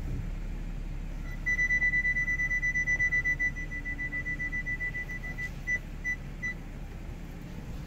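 Audi A6 parking-sensor warning beeper: a high beep repeating about five or six times a second for about four seconds, then slowing to three spaced beeps, the beep rate signalling the distance to an obstacle behind the car. A low steady hum runs underneath.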